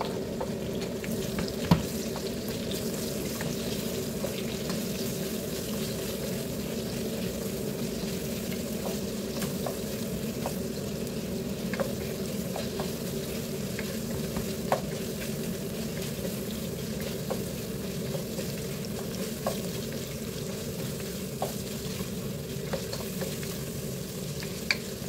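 Chicken, garlic and sliced onion frying in a non-stick pot with a steady sizzle, as a wooden spoon stirs and now and then taps against the pot. A single sharp knock about two seconds in.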